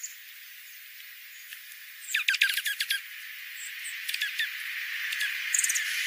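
Small songbirds calling in quick bursts of high, sharp chips: a rapid run of about ten descending notes about two seconds in, a shorter run around four seconds, and a few very high notes near the end, over a steady hiss that grows louder toward the end.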